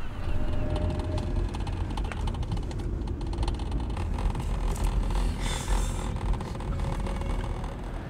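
Steady low rumble of road traffic, with a vehicle passing with tyre hiss about five and a half seconds in.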